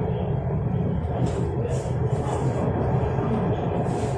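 Orange Line electric metro train running between stations, heard inside the carriage: a steady low rumble of wheels on track and running gear, with a few brief hissing sounds.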